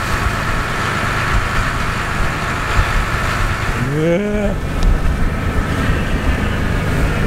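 Fishing boat's engine running steadily under way, with rushing wind and water noise. A short rising voice-like call sounds briefly about four seconds in.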